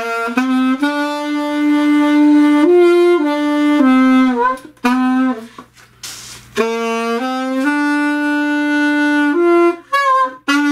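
A 1925 Holton alto saxophone played in two phrases of held notes with short slides between them. The notes waver and break near the end. These are the first notes on the horn after solder repairs, and the player suspects a leak.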